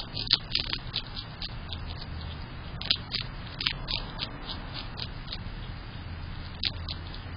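A skunk eating seeds off a concrete porch floor: irregular sharp crunching clicks, in clusters near the start, around three to four seconds in, and once more near the end, over a low steady hum.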